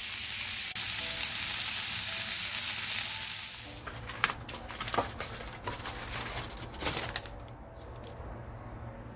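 Beef steaks sizzling loudly in a hot cast-iron skillet. After about three and a half seconds the sizzle stops and aluminum foil crinkles and rustles in irregular sharp crackles as it is folded over the steaks, until about seven seconds in.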